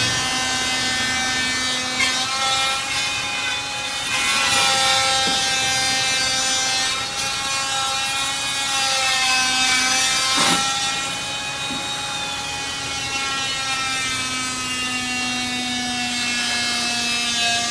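Construction-site power tool running with a steady whine that drifts slowly up and down in pitch, over a noisy background, with a brief sharp falling sweep about ten seconds in.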